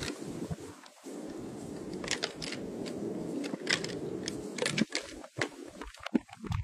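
Two white-tailed deer fighting head to head in dry grass: scattered sharp clicks and knocks as their heads clash and they scuffle, over a steady low rustle. The clicks cluster in the middle, and choppier low knocks follow near the end.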